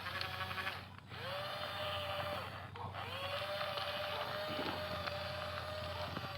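Small electric motor of a radio-controlled model construction vehicle whining as it drives. It stops briefly twice, each time spinning back up with a rising pitch, then runs steadily.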